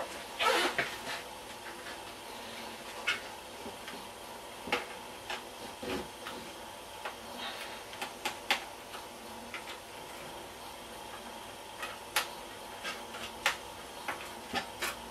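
Scattered small clicks and knocks of hands handling the plastic underside of an HP Pavilion dv9000 laptop while working at its screws and access covers, irregular and a few seconds apart, over a faint steady hiss.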